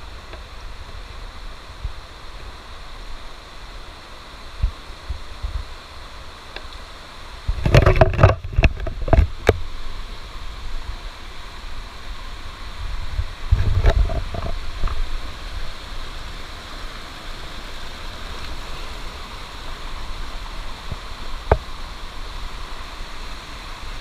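Rocky jungle stream rushing over stones in a steady hiss of water. A cluster of knocks and low thumps comes about eight seconds in and again around fourteen seconds.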